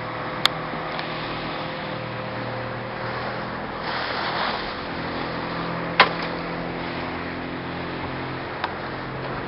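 Motorboat engine running steadily, a low, even drone with a rush of wind or water swelling briefly about four seconds in. A single sharp click comes about six seconds in.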